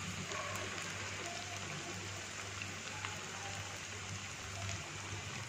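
Sabudana vadas deep-frying in hot oil in a pan: a steady sizzle with fine crackling, over a low steady hum.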